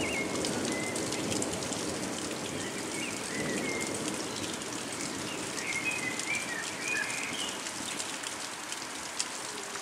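Steady rain falling, with a bird chirping a few times over it.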